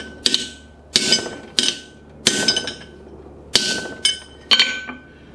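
Hammer blows on a bent steel piece held in a vise, about six strikes at uneven spacing, each leaving a short metallic ring. He is knocking back an overbent angle.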